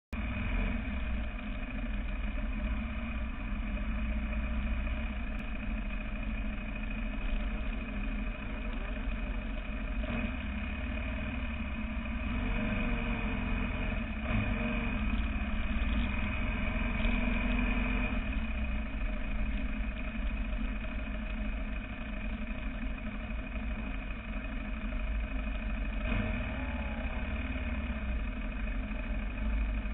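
Sportbike engine running steadily as the bike rides along, with wind rumbling over the fairing-mounted microphone.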